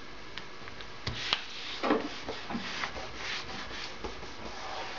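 A sheet of A4 paper being folded in half and its crease rubbed flat by hand on a wooden tabletop. There are soft rubbing and rustling strokes with a couple of light taps, starting about a second in.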